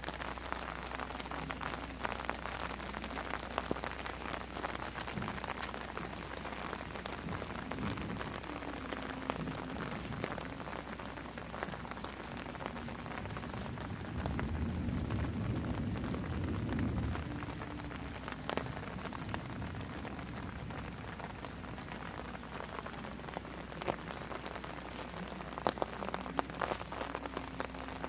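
Steady rain falling, with individual drops ticking close by throughout. A louder low sound swells for a few seconds just past the middle.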